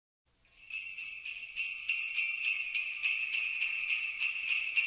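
Sleigh bells shaken in a steady rhythm of about three shakes a second, fading in over the first half second: the intro of a recorded Christmas song.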